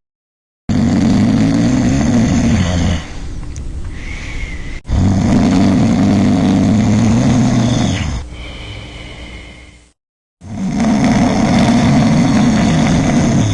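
A person snoring: three loud, fluttering snores, each followed by a quieter breath. The sound is the soft palate and uvula vibrating in a partly blocked airway.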